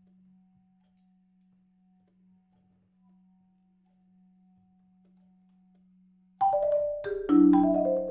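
A very soft, steady low bass clarinet note held for about six seconds. Then, about six seconds in, a marimba enters loudly: a quick run of mallet strikes on its wooden bars, mostly falling in pitch, with the loudest low notes about a second after the entry.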